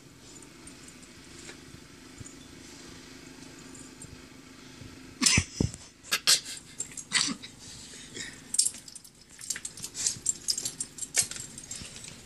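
Dogs moving about in deep snow. A faint low steady sound for about five seconds, then a loud, irregular run of sharp crunches and knocks.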